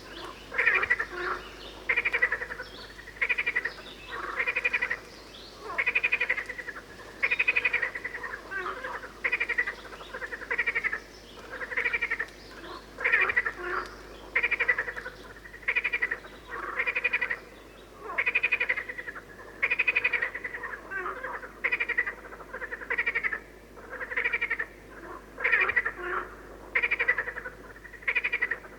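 Frogs croaking: a loud, rattling call repeated over and over, about once a second, with fainter calls in between.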